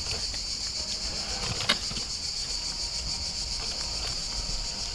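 Insects buzzing steadily in a high, slightly pulsing drone. There is a single sharp click about a second and a half in.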